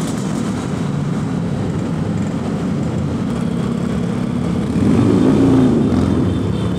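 A Yamaha RX-King's 135 cc two-stroke single-cylinder engine runs through its stock exhaust while the bike is ridden in traffic. The engine swells briefly about five seconds in, rising and falling in pitch, as it revs up and eases off.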